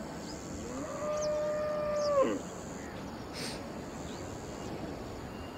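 A cow mooing once: a single drawn-out call of about a second and a half, rising at the start and dropping away at the end, with a few faint bird chirps around it.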